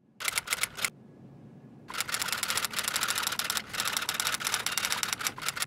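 Typewriter keys clattering in rapid strokes as text is typed out: a short burst, then after about a second a longer run of fast keystrokes that stops abruptly near the end.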